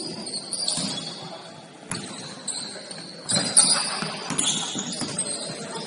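Basketball game play: sneakers squeaking on the court floor in short high squeals and the ball bouncing, with the loudest knock about three and a half seconds in.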